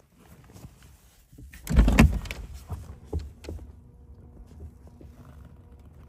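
A dull thump about two seconds in, with scattered clicks and knocks of handling inside a car's cabin, then a faint steady hum.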